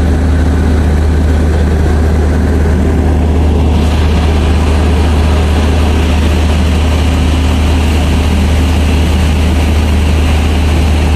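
Running machinery of a WAP-5 electric locomotive heard from inside its cab: a steady deep hum over a broad rushing noise. About four seconds in, a hiss in the upper range comes up and holds.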